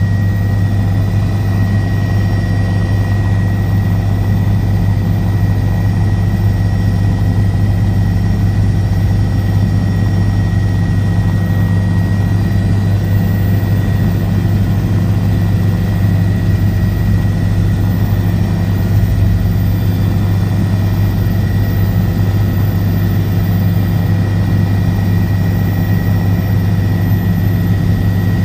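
Helicopter in flight: the engine and rotor make a loud, steady drone with a deep hum and a thin high whine over it.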